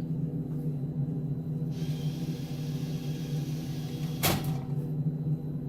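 Medication vending machine vending: its spiral coil motor runs for about two and a half seconds, then the item drops into the bin with a single thud, over a steady low machine hum.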